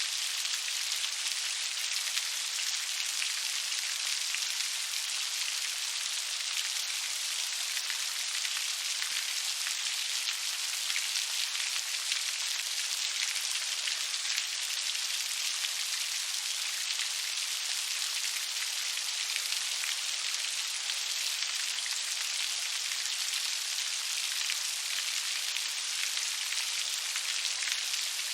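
Steady rain falling, a dense even patter of many fine drops with little low rumble and no change in intensity.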